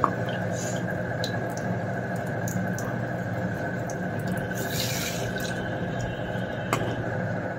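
Water running steadily, with a brief higher hiss about five seconds in and a sharp click near the end.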